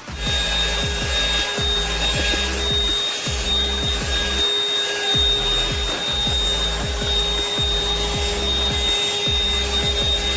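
AIRKII HV-02B cordless handheld vacuum running with a steady whine while its nozzle rubs and scrapes over a surface in repeated short strokes. Background music plays underneath.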